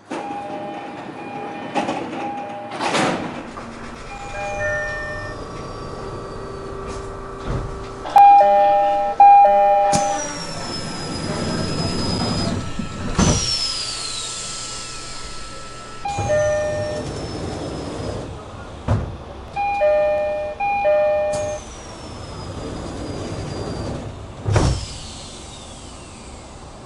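JR East-type three-tone door chimes on commuter trains (E129 series), a short group of tones sounding several times as the doors cycle. Heavy door thuds and high whines that fall in pitch come between the chimes.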